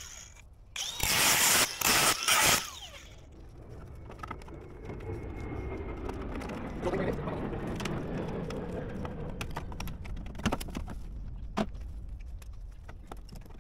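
Old metal downpipe being wrenched and pulled off the gutter and wall: a few loud metallic bangs and clatters about a second in, then a long stretch of scraping and grinding sheet metal, with a couple of sharp clicks near the end.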